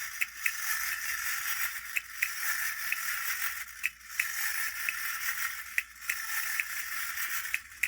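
Vintage wind-up tin toy running: a steady high whirr from its clockwork with sharp irregular clicks about every half second. It stops abruptly at the end.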